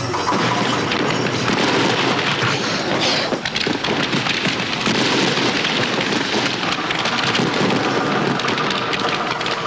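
Fireworks crackling and hissing in a dense, continuous crackle, with a brief dip about three seconds in.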